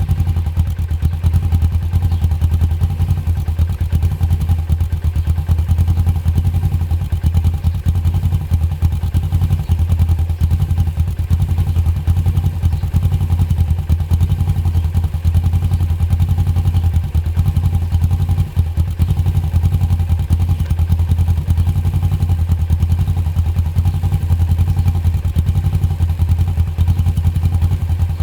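Stock Suzuki GS500E's 487 cc two-cylinder engine idling steadily through its stock exhaust, just after start-up.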